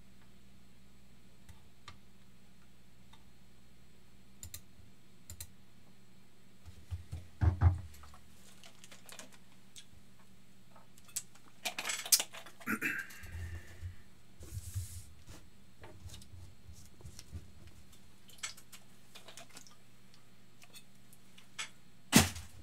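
Irregular clicks and taps of typing on a computer keyboard, with a louder knock about seven and a half seconds in.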